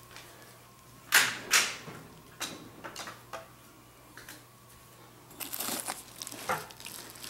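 Handling noise of airsoft rifle parts on bubble wrap. Two sharp clicks come about a second in, then a few lighter knocks, and near the end a crinkling rustle of plastic bubble wrap as the lower receiver is picked up.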